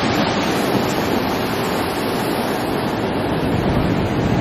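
Heavy ocean surf: big waves breaking and surging white water over a rock shoreline, a steady rush of noise.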